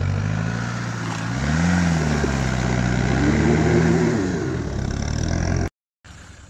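Land Rover Defender 110's 200Tdi four-cylinder turbodiesel engine working under load while towing on a strap, its note rising twice as it is revved. The sound cuts off suddenly near the end.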